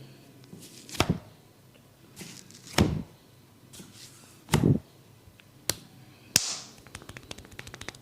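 Hands striking a head during an Indian head massage: a series of sharp slaps about two seconds apart, the first three the heaviest, then a quick run of small crackling clicks near the end.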